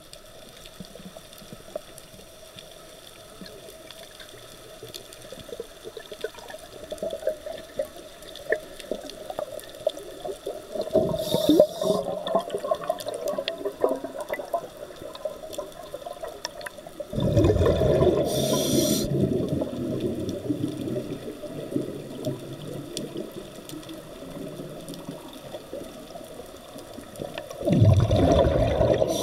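Scuba diver's exhaled air bubbling and rumbling underwater, heard as three gurgling bursts of breath: a short one about a third of the way in, a longer, louder one past the middle and another near the end. Between them a fainter steady underwater hiss.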